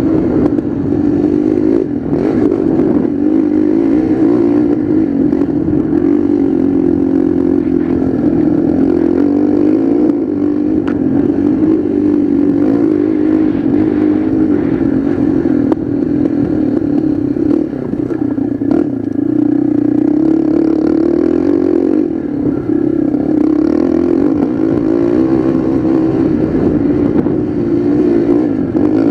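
Sport quad bike's engine running hard at race pace, its revs rising and falling and dipping briefly a few times. Knocks and rattles come from the machine on the rough dirt track.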